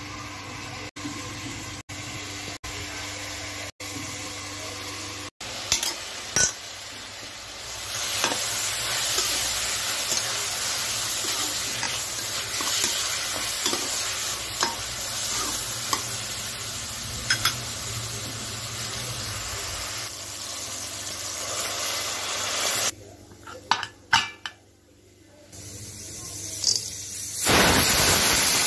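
Onion and mutton masala sizzling in a frying pan while it is stirred with a spoon, with the occasional click of the spoon against the pan. A louder hiss starts near the end.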